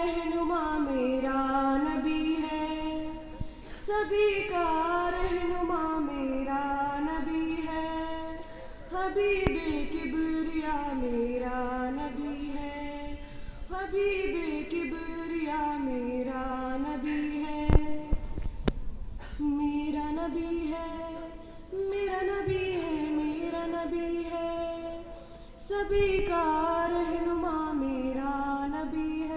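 A schoolgirl's solo voice sings a naat, a devotional poem, without any instruments, into a microphone. She sings in melodic phrases of about four to five seconds, each sliding down in pitch. One sharp click comes near the middle.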